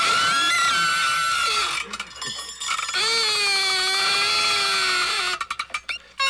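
Party noisemakers: a blown party horn gives a long, reedy, slightly wavering high blast, then after a break with rattling clicks a second, lower blast, followed by another burst of rattling clicks near the end.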